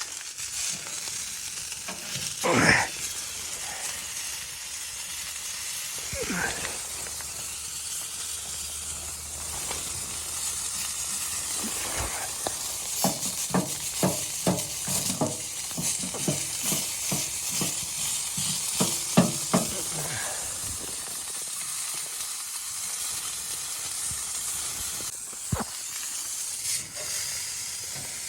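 Food sizzling steadily in a hot pan, with a run of short knocks and scrapes from a utensil stirring it in the middle.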